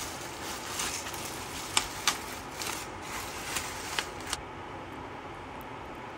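Plastic bubble wrap crinkling and rustling as it is handled and pulled off a packed obstacle, with several sharp crackles. It stops abruptly about four seconds in, leaving only a steady faint hiss.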